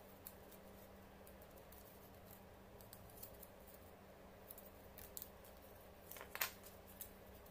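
Faint rustling and small clicks of paper being folded and creased by hand, with one louder, sharper paper sound about six seconds in as the hands handle the folded models.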